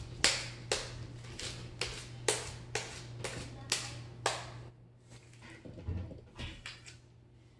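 Butter slime (glue, borax and air-dry clay) being kneaded and slapped between the hands: sharp wet slaps about twice a second, giving way after about four and a half seconds to softer, quieter squishing as it is stretched.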